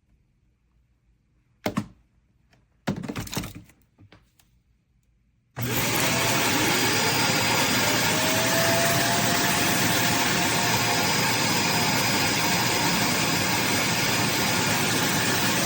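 A couple of handling clicks and a short clatter, then the Dreame Z30 cordless stick vacuum is switched on about five and a half seconds in. Its motor whine rises as it spins up and then runs steadily with a loud rush of air.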